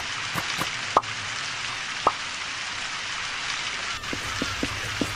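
Steady rain hiss with water drops plopping: two clear drops about one and two seconds in, and a quick run of four smaller ones near the end.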